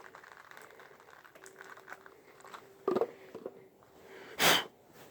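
Light handling rustles and clicks of an engine part in the hands, a sharper knock about three seconds in, then one short spray hiss near the end as fuel is sprayed onto a connecting-rod bearing to clean it.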